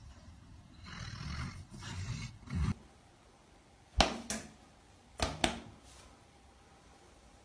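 A sleeping yellow Labrador's low snoring breaths for the first few seconds. After a cut, four short loud sharp sounds come in two quick pairs.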